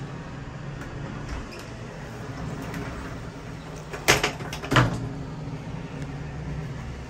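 KDK 15WUD window-mounted exhaust fan running with a steady hum. About four seconds in, two sharp knocks come less than a second apart.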